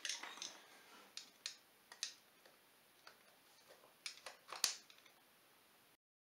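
Light metal taps of a hammer striking a screwdriver to bend over the lock tabs on an ATV's clutch-cover screws: a handful of irregular sharp strikes, the loudest about four and a half seconds in, then the sound stops abruptly near the end.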